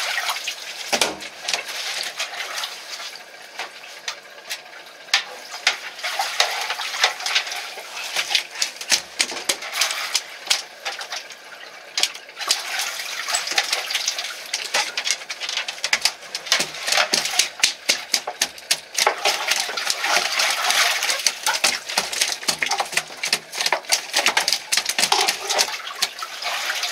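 Splashing water mixed with a dense run of sharp clicks and knocks, busiest and loudest past the middle.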